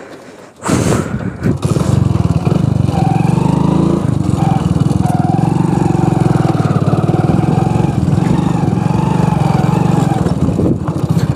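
Hero Splendor's small single-cylinder four-stroke engine running as the motorcycle rides along a dirt trail, its pitch wavering up and down with the throttle. A short rush of noise comes about a second in, just before the engine sound settles in steadily.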